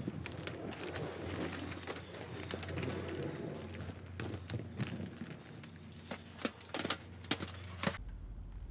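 Footsteps and handling noise from someone walking on pavement, with irregular crackling and clicking over a steady low hum. Near the end come a few sharp clicks, like a key working a door's deadbolt.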